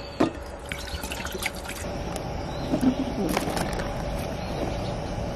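Water poured from a bottle into an aluminium camping pot, trickling and splashing, with a few light knocks against the pot.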